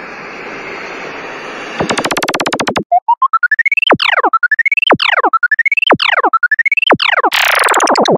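Electronic synthesizer sound effects: a hiss of noise, then a short pulsing buzz, then four rising tones about a second apart, each snapping down in a quick falling sweep, and near the end a loud swooping tone that dips and rises.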